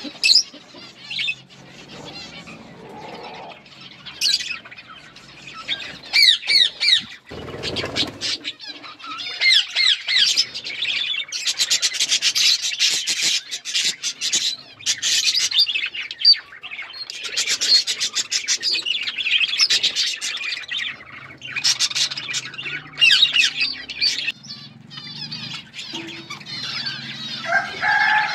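A flock of budgerigars chattering and chirping continuously in fast, high-pitched warbles and squawks. There is a dull thump about seven seconds in.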